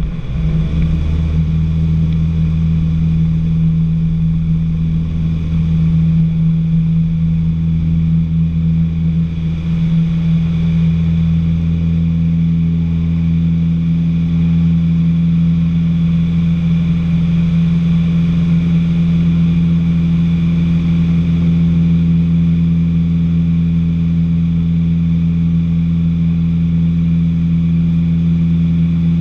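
Steady drone of a light training aircraft's piston engine and propeller, heard inside the cockpit. A low, even hum holds throughout, with no change in power.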